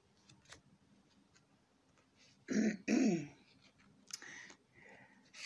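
A woman clearing her throat: two quick, rough, loud pushes about two and a half seconds in, the second sliding down in pitch, then a short breathy noise a second later.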